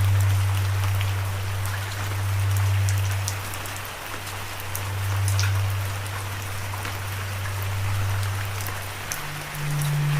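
Steady rain falling, with single drops landing as scattered sharp ticks. Underneath runs a loud, low, steady droning tone that steps up in pitch about nine seconds in.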